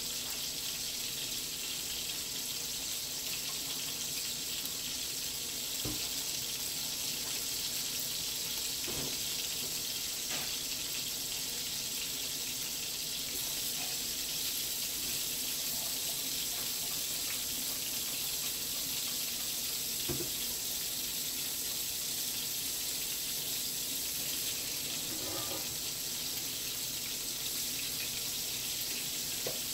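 Pollack fillets browning in olive oil in a frying pan, sizzling steadily, with a few faint clicks scattered through.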